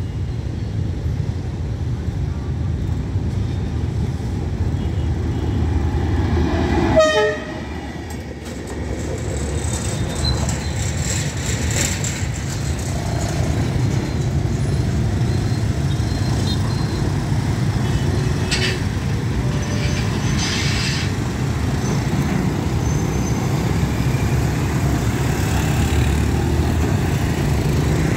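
D19E diesel locomotive running light through a level crossing: a steady low engine rumble, with a short horn toot about seven seconds in. Later, scattered motorbike engines and short high sounds join in as road traffic starts to move.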